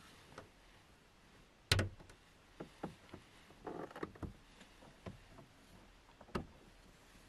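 Scattered knocks and bumps with a short rustle, from someone shifting about inside a small parked car; the loudest knock comes nearly two seconds in, and a last one follows about six seconds in.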